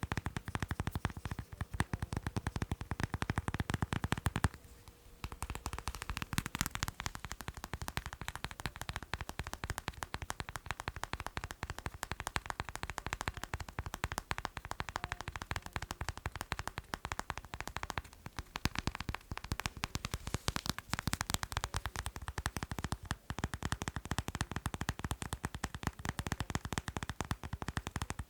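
Rapid tapping on macarons, a dense run of short clicks many times a second, pausing briefly about four and a half seconds in and then carrying on.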